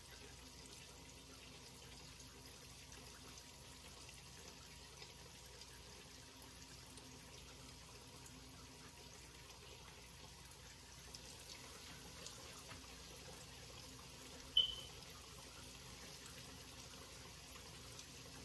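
Fish frying in hot oil on the stove: a faint, steady sizzle. One short, sharp, high clink sounds once, late on.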